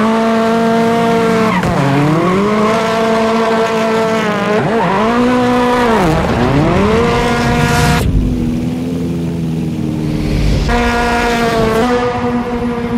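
Turbocharged four-cylinder rally car engine, a Ford Fiesta rallycross car, held at high revs while drifting, dropping sharply and climbing back several times as the throttle is lifted and reapplied, with tyre noise under it.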